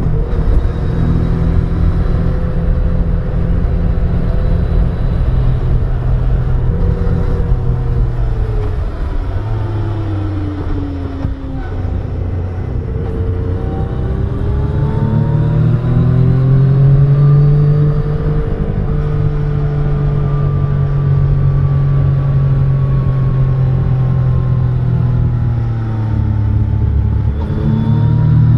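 Yamaha Tracer 900's three-cylinder engine under way, heard from the rider's position over a steady rush of wind and road noise. A third of the way in the revs fall as the throttle is eased off into a bend. They then climb again as it accelerates out and hold steady, with a brief dip and rise near the end.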